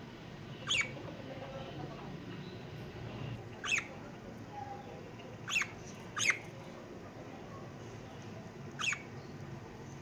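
Pet budgerigars giving five short, sharp chirps, spaced a second or more apart, with two close together just past the middle.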